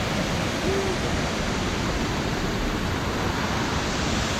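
Steady rush of flowing water, an even hiss that holds at one level throughout.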